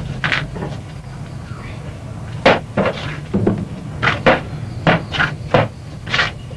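Wooden draughts pieces knocked down onto a board in a quick, uneven run of about ten sharp clacks, most of them in the second half, over a steady low hum.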